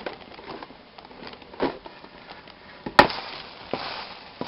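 Light clicks and knocks from handling a coffee maker and its cup as the finished brew is taken out, with a firmer knock about a second and a half in and one sharp, loud knock about three seconds in.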